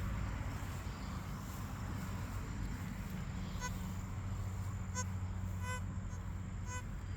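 Metal detector sounding several short, clear target beeps from about halfway in as the coil sweeps over buried metal, over a steady low hum.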